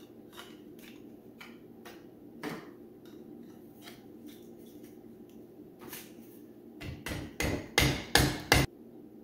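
Hammer striking nylon wedges driven between a Toyota CT15B turbocharger's turbine housing and center bearing housing, which are stuck together with carbon buildup. Light taps and knocks at first, then a quick run of about six hard blows in the last two seconds.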